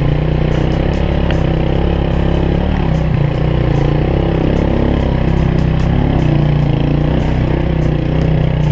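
Motorcycle engine running at low speed on a rough dirt track, its pitch shifting a little as the throttle changes, with occasional short clicks and rattles.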